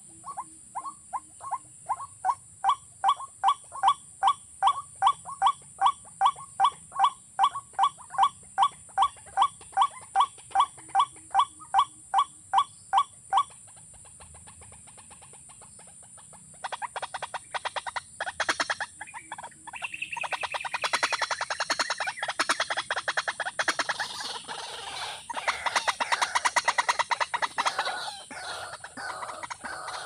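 Watercock (kora) calls: a long, regular series of single notes about three a second, growing louder. After a pause of about three seconds, a faster, denser run of calls starts and carries on to the end. A steady high hiss runs beneath throughout.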